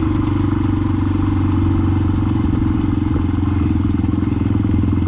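Yamaha XTZ 125K's single-cylinder four-stroke engine running through a Fortuna F1 mini trioval aftermarket exhaust, holding a steady engine speed with an even, loud exhaust note.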